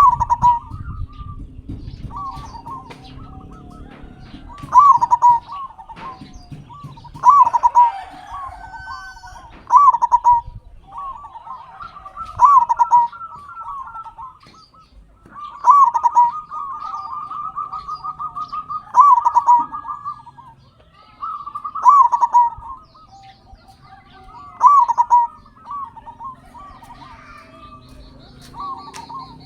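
Zebra dove (perkutut) cooing: a loud phrase of quick coo notes repeated about every three seconds, about ten times. Faint high chirps sound between the phrases, and a thin steady high tone comes in near the end.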